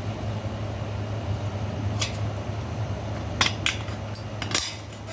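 Metal strap bracket being trimmed and handled: a few sharp metallic clicks and clinks, one about two seconds in and a cluster in the last second and a half, over a steady low hum.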